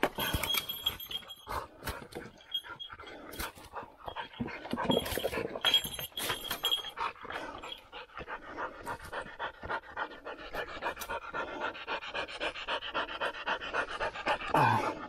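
Hunting hound panting hard with fast, even breaths, plainest in the second half. Irregular rustling and knocks come in the first half.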